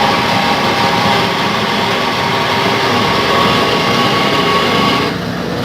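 Lathe running steadily, a dense mechanical hum with several steady tones that eases slightly about five seconds in.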